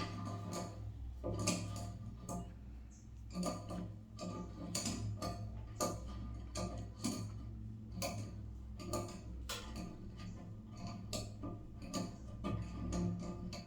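Irregular light clicks and taps, a few a second, from hand work refitting a toilet's flex supply hose and its fittings, over a low steady hum.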